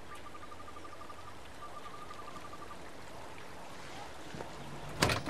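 Quiet steady outdoor hiss with a faint high rapid trill heard twice in the first half, then a sharp thump about five seconds in, like a car door slammed shut.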